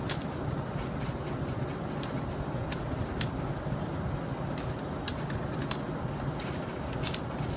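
A few light, sharp metal clicks as AR-15 upper and lower receiver parts are handled and fitted back together, spaced a second or more apart over a steady background hum.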